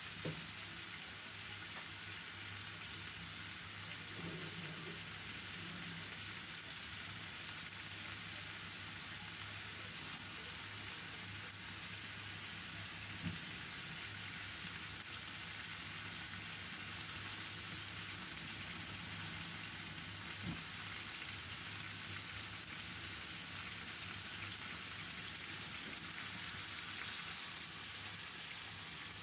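Marinated chicken pieces frying in a little oil in a karai over medium heat: a steady sizzling hiss with a couple of faint pops.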